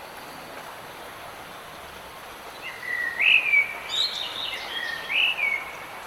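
A songbird sings one phrase of clear whistled notes with rising slurs. The phrase starts a little over halfway through and lasts about three seconds, over a steady hiss of rain.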